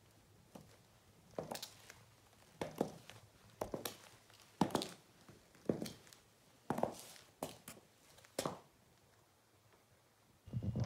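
Stiletto heels of leather ankle boots clicking on stone floor tiles: slow footsteps, about one sharp click a second, stopping a couple of seconds before the end.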